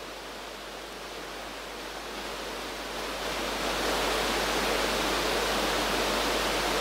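A steady rushing hiss with no voice, growing louder about three seconds in and then holding steady.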